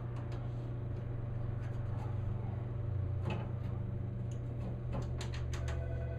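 Scattered light clicks and knocks of metal door hardware being handled, several in quick succession near the end, over a steady low hum.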